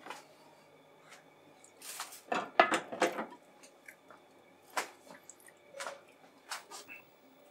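Scattered light clicks and knocks, with a louder cluster about two to three seconds in.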